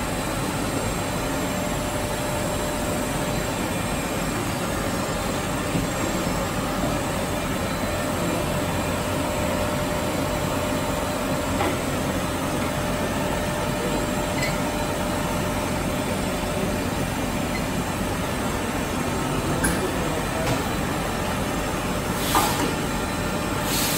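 1998 Studer S30-1 cylindrical grinder running under power: a steady mechanical rumble and hiss with a faint steady tone. A few light clicks and knocks come on top, the loudest near the end.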